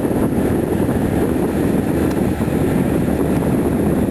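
Steady low rumble of boat engines, mixed with wind noise.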